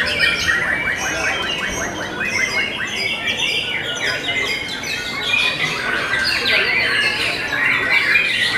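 White-rumped shamas (murai batu) singing in a caged-bird contest: loud, dense, overlapping whistles, chatters and trills. A fast rattling trill of evenly repeated notes runs from about one to three seconds in.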